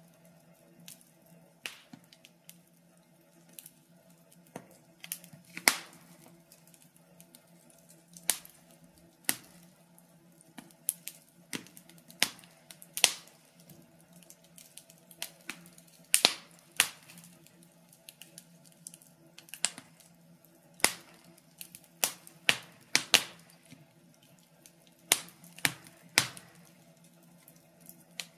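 Wood fire crackling: irregular sharp pops and snaps, several of them louder cracks, over a faint steady low hum.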